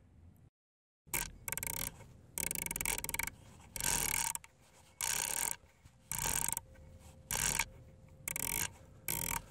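About ten short runs of rapid mechanical clicking or rattling, each lasting under a second, coming roughly once a second after a brief break to total silence near the start.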